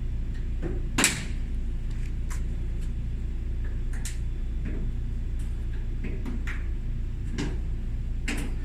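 Scattered clicks and knocks of hands handling the opened cabinet of a Kenmore dryer, with one sharp clack about a second in, over a steady low hum.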